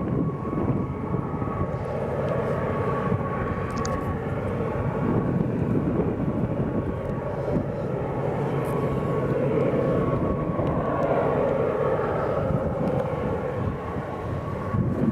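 GE AC4400CW diesel-electric locomotive running under power: a steady engine drone, with a thin high whine over it for the first few seconds.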